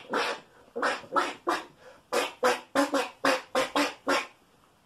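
A man imitating a duck with his voice: a quick run of about a dozen short "quack" sounds in a steady beat.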